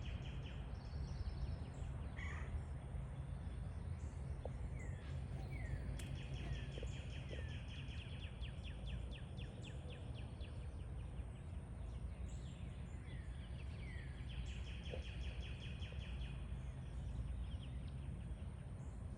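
Outdoor ambience of birds: short downward-sliding chirps here and there, and a fast pulsing trill that comes and goes, over a steady low rumble.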